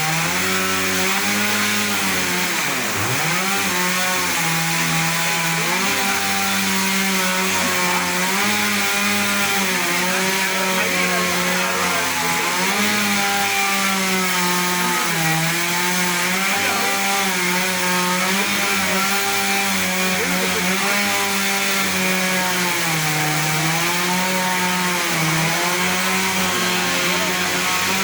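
Two-stroke chainsaw running at high speed while cutting a tree. Its pitch dips and recovers as the chain bogs in the wood, most markedly about two to three seconds in.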